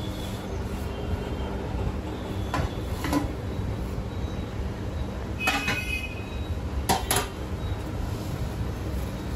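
A few sharp knocks and clinks of metal kitchen utensils, one ringing briefly about halfway through, over a steady low rumble of street traffic.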